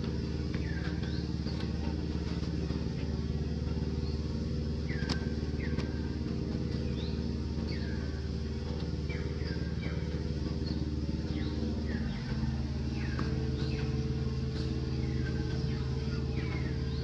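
A motor vehicle engine running steadily: a low hum with several pitched tones that shifts in pitch about twelve seconds in. Short, high, falling chirps repeat over it about once a second.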